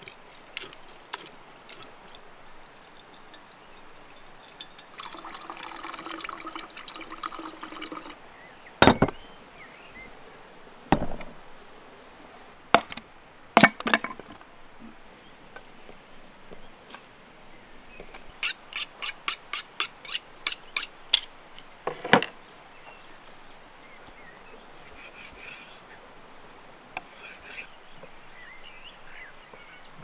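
Wet squelching as watermelon flesh is scooped out of the rind by hand. Then come several sharp knocks and thuds of sticks of firewood, a quick run of about a dozen clicks, and another knock. Faint birdsong chirps near the end.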